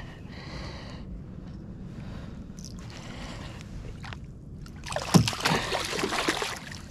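A hooked bass splashing and thrashing at the water's surface for about a second and a half near the end, as it is pulled in to the boat. A low steady rumble runs underneath.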